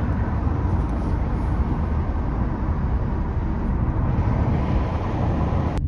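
Steady rumbling road noise of a moving car, heard from inside the cabin.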